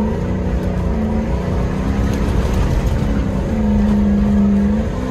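4x4 engine under load climbing a sandy off-road track, heard from inside the cabin, its pitch rising and falling a few times as the throttle changes. Rumble and jolting from the rough ground run underneath.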